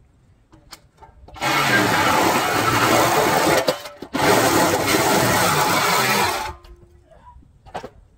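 Cordless reciprocating saw cutting through a steel RV trailer frame: a run of a little over two seconds, a brief break, then about two and a half seconds more before it stops suddenly.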